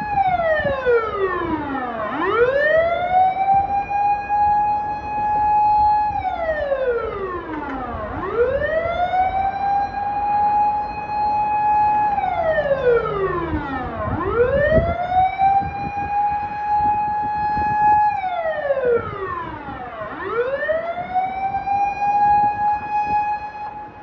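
Vehicle siren wailing loudly in a slow repeating cycle: a held high tone for about three seconds, a slide down in pitch, then a quick swoop back up, about every six seconds, four times over. It comes from the yellow expressway tow truck whose red light is flashing.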